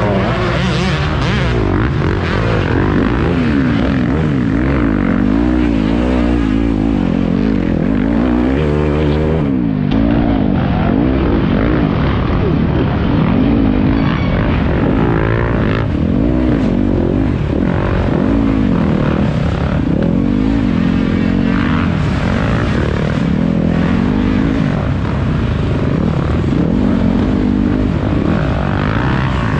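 Off-road dirt bike engine being ridden hard on a woods trail, its pitch rising and falling again and again as the throttle is opened and closed.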